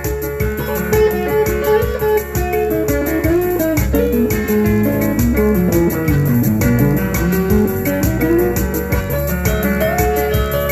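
Instrumental break of a song: a guitar plays a sliding melody over bass and a steady beat.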